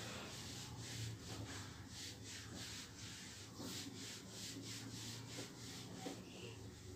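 Whiteboard duster wiped in quick back-and-forth strokes over a whiteboard, a rhythmic rubbing swish of about three strokes a second, erasing marker writing.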